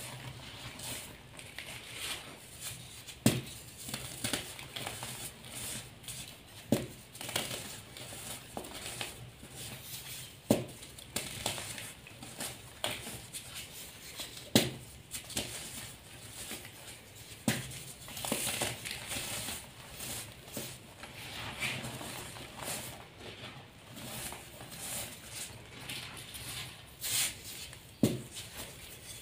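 Gloved hands sifting and squeezing loose dyed gym chalk powder, a soft steady crunching and patter of the powder, with about six short sharp clicks as lumps or a chalk block are pressed.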